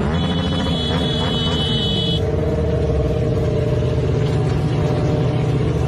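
Sport motorcycle engine running steadily at road speed, heard from the rider's helmet camera. A high steady tone sounds over it for about the first two seconds.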